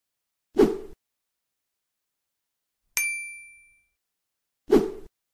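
Subscribe-button animation sound effects: a short thump about half a second in, a bright bell-like ding at three seconds that rings and fades, and another short thump near the end.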